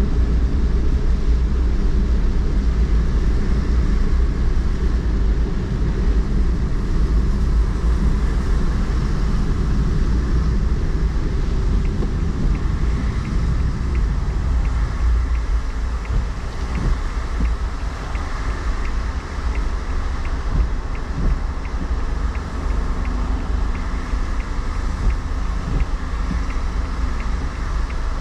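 Car driving on wet city streets, heard from inside: a steady low road and tyre rumble with some wind noise. It eases off somewhat about halfway through as the car slows in traffic.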